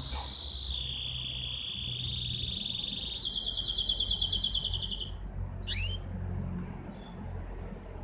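Canary singing: long rolled trills, each held on one pitch, breaking into a faster pulsing trill about three seconds in, then two quick sweeping chirp notes.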